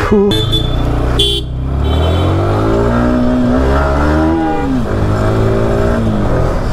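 Motorcycle engine pulling away, its pitch rising and then falling as it accelerates and eases off. Two short vehicle-horn toots come in the first second and a half.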